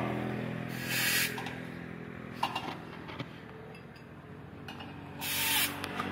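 Two short hisses of compressed air, about four seconds apart, with a few small metallic clicks between them from tyre-changing tools on a motorcycle wheel rim. A vehicle engine hums and fades away at the start.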